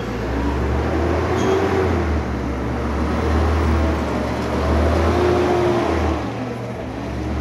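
Front-loader garbage truck's engine running as the truck pulls away along the street: a low rumble under a whine that rises and falls several times while the truck gathers speed.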